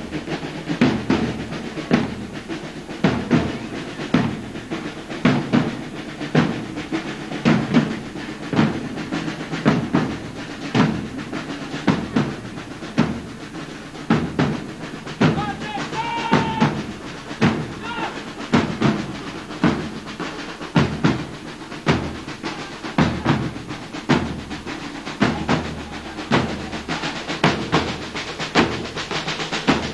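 Marching drum corps of snare drums and bass drums playing a steady march beat, the bass drum strokes marking an even pulse under the snare rolls.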